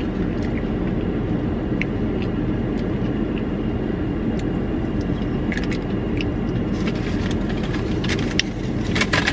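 Steady hum and rush inside a parked car from its idling engine and air-conditioning blower. A few light clicks and crinkles come through as food and its paper packaging are handled, more of them near the end.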